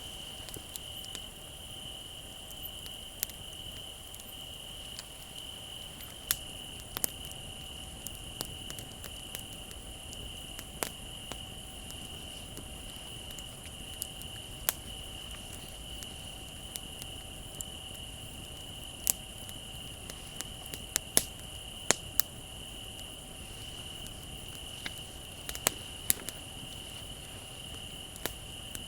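Wood fire crackling, with sharp irregular pops and snaps that come thickest past the middle, over a steady high trill of crickets.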